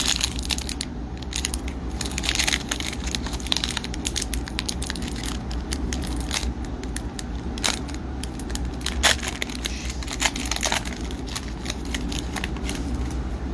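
Hockey card pack wrapper crinkling and tearing as it is opened, and cards handled and shuffled, giving a run of irregular crackles and snaps over a steady low hum.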